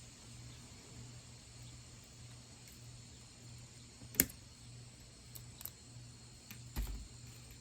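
Handling noise with a wire coat hanger: one sharp click about four seconds in, a few softer clicks and a dull thump later, over a steady low hum.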